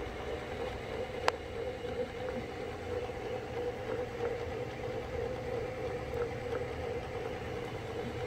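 A surface grinder's flood coolant system running: a steady machine hum with water-soluble-oil coolant trickling down into the skimmer tank. There is a single sharp click about a second in.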